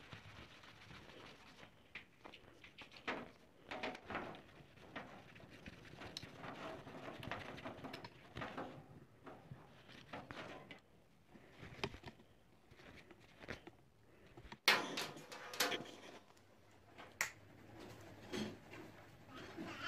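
Irregular clicks, taps and knocks of small hard parts being handled on a work surface, with one louder knock and a short clatter about three-quarters of the way through.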